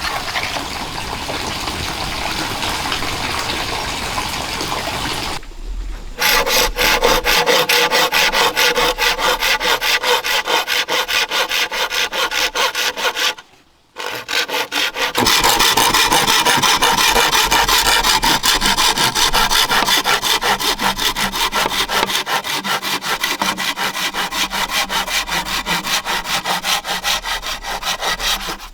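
Hand saw cutting through wood in fast, even back-and-forth strokes, in two long runs with a short break about halfway through. Before the sawing starts there is a steady rushing noise.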